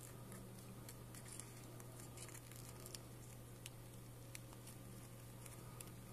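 A sheet of origami paper being folded and creased by hand into a petal fold: faint, scattered crinkles and soft clicks over a steady low hum.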